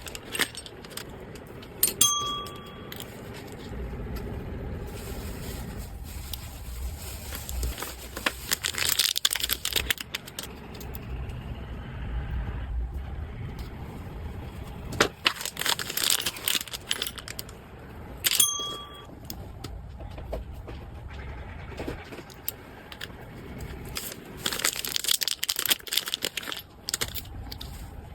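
Packaging rustling and crinkling in irregular bursts as a parcel is handled, with two short electronic beeps, one about two seconds in and another roughly sixteen seconds later.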